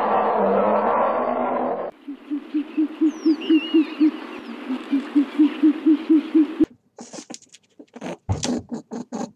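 An owl hooting in two rapid runs of low, evenly spaced hoots, about four a second, with faint bird chirps above. A dense noisy sound ends just before the hoots begin, and a run of short sharp clicks follows them near the end.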